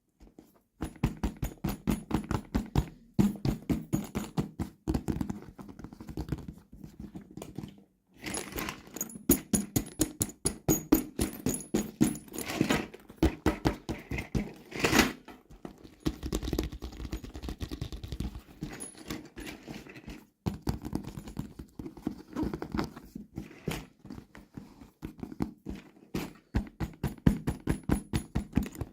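Plastic toy packaging being handled and opened: quick runs of clicks and crinkles, broken by short pauses.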